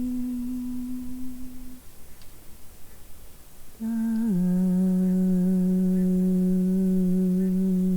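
A voice humming long, steady held notes in improvised wordless singing. One note ends about two seconds in; after a short pause a new note starts, slides a little lower and holds.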